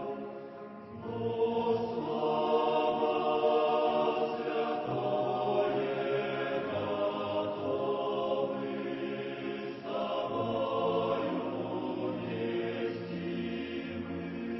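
A choir singing a slow hymn in sustained chords, with new phrases starting about a second in and again about ten seconds in.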